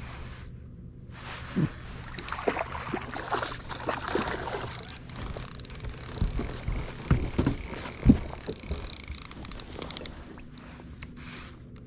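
Handling noise of a spinning rod and reel: scattered knocks and clicks, with a hiss in the middle stretch, over a low steady hum.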